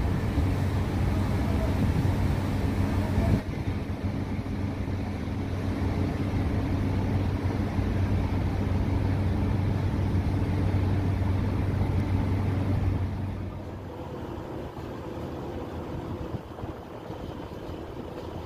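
Steady low drone of ship's engine machinery: a deep hum with a few fainter higher tones. About thirteen seconds in the deep hum drops away and the sound becomes quieter.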